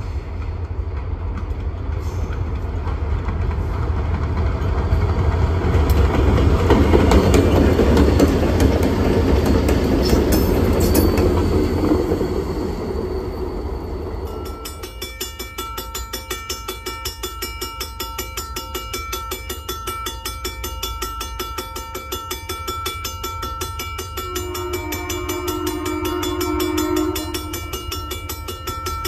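Diesel locomotives running light, with no cars, go by with a steady engine rumble and rail noise that swells to its loudest about seven to ten seconds in. Partway through the sound changes abruptly to a grade-crossing warning bell ringing steadily, and a distant locomotive horn sounds a chord for a few seconds near the end.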